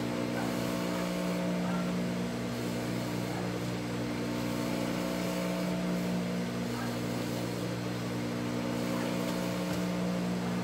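Industrial sewing machine's electric motor humming steadily while the machine waits between seams, with a few faint handling sounds as fabric is positioned under the presser foot.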